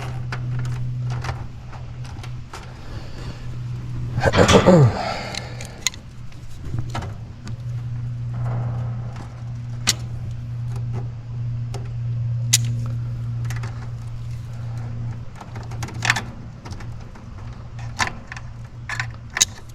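Wires and tools being handled, giving scattered sharp clicks and light rattles over a steady low hum. About four and a half seconds in there is a brief louder sound that falls in pitch.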